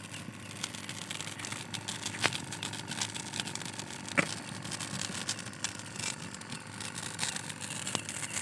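Wood campfire crackling steadily with many small clicks, and two sharper pops about two and four seconds in.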